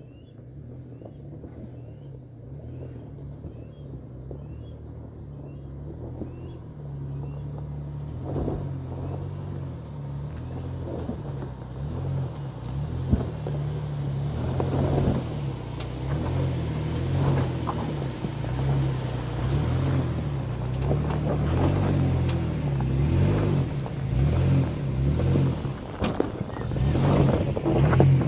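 Nissan Xterra's V6 engine pulling the SUV up a rutted dirt trail in two-wheel drive with the rear e-locker engaged. It grows steadily louder as it approaches, with more and more knocks and crunches of the tyres over rocks and ruts from about a third of the way in. A bird chirps repeatedly in the first few seconds.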